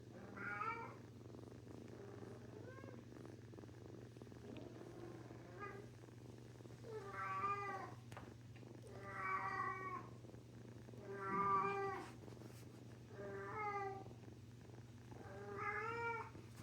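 Female cat in heat yowling over and over: about eight drawn-out calls, roughly one every two seconds, a couple of them fainter, with a cat's steady purr underneath.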